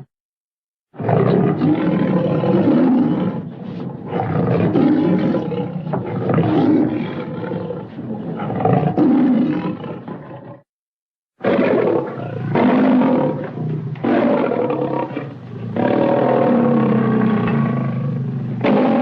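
Lion roaring and growling in two long stretches, starting about a second in, with a brief silence under a second long about halfway through.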